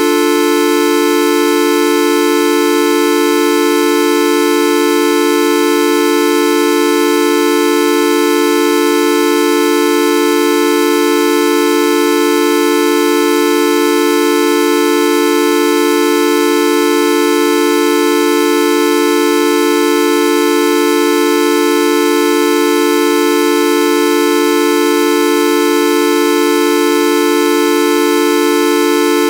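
The 'Videoup V1.2' sound effect: a loud, steady, horn-like tone with several pitches sounding together, held without any change in pitch or loudness.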